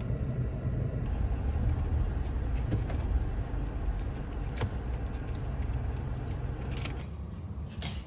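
A car running, heard from inside the cabin as a steady low rumble with a few light clicks. About seven seconds in, the rumble drops away to a quieter room with a few light taps.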